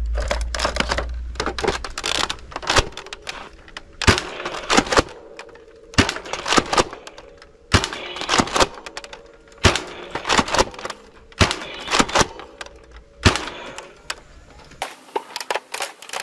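Quick clusters of sharp plastic clicks and clacks from a Nerf sniper-style blaster being worked and fired.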